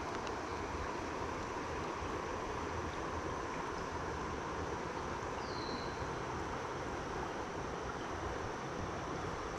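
Steady rush of a shallow trout river running over a riffle, heard close up.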